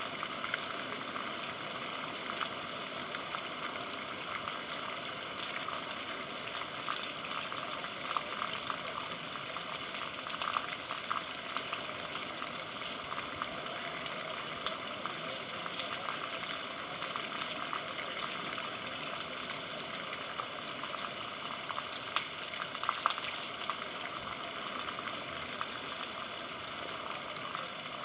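Steady rain, an even hiss of falling drops with many fine, close patters and a few louder drip clicks.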